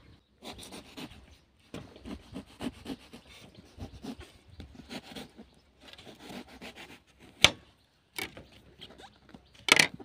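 Knife sawing and scraping through a large ripe giant eggplant in many short strokes, with a sharp knock about seven and a half seconds in and another loud knock near the end.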